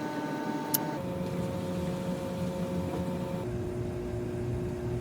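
Electric motor of a small machine tool running with a steady hum. Its pitch drops abruptly about a second in and again partway through.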